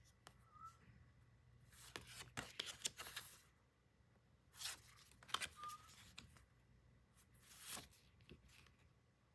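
Faint rustling and crinkling of paper or plastic packaging being handled and torn open, in three short bursts with soft scrapes between.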